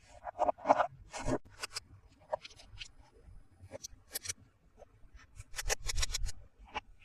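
Plastic toys and packaging being handled: scattered light clicks, taps and scrapes, with a run of quick clicks about five to six seconds in.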